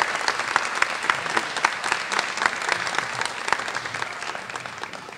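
Audience applause: many people clapping, dying away over the last second or so.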